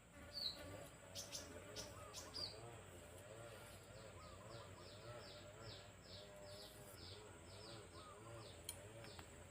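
Faint bird calls: a run of short, high, downward-sliding notes, about four a second, over a lower wavering call that repeats throughout.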